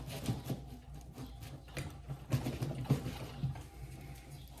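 Irregular metallic clicks, rattles and knocks of a brake pedal being wiggled and pulled against its pedal-box bracket, held in place by a pivot bolt still fitted. The loudest knocks come a little past the middle.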